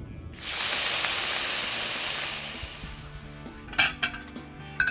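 A pan sizzling: a loud hiss starts suddenly and fades away over about two and a half seconds, followed by a few clinks of tableware near the end, over faint music.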